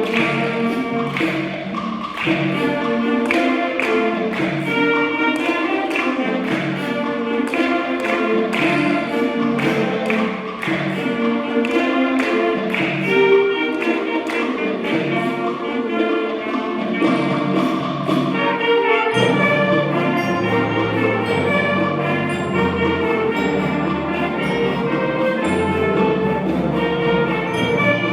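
Ensemble music from a school band, with brass over a steady rhythmic pulse; about two-thirds of the way through, lower parts join and the sound grows fuller.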